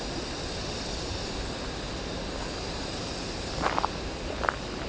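Steady outdoor background noise, an even hiss, with a few brief sharp clicks or chirps about three and a half seconds in and again near the end.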